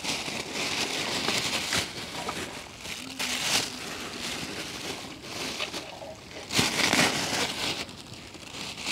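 Thin clear plastic bags rustling and crinkling in uneven bursts as vegetables are handled and packed into them by hand.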